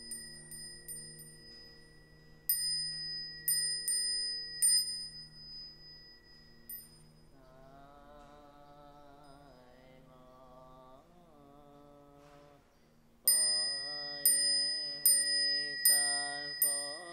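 Buddhist liturgical chanting with a small high-pitched bell struck repeatedly. A quick run of bell strikes and a low steady drone fill the first seconds, a single chanting voice carries on alone in the middle, and bell and chant go on together near the end.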